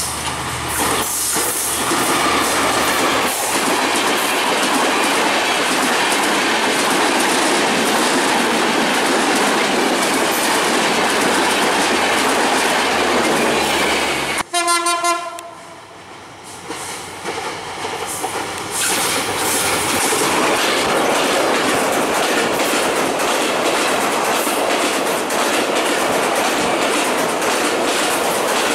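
Broad-gauge diesel passenger trains passing close at speed: a loud, steady rush of coaches with wheels clattering over the rail joints. About halfway the sound breaks off for a short horn blast and a brief lull, then another train's clatter builds again.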